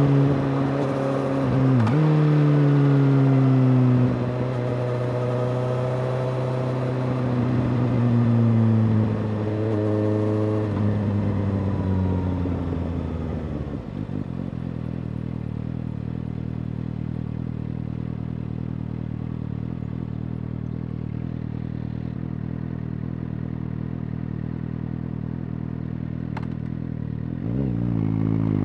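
Suzuki GSX-S750 inline-four through a Yoshimura R-77J exhaust, its revs rising and falling several times, settling into a steady idle about halfway through, then climbing again near the end.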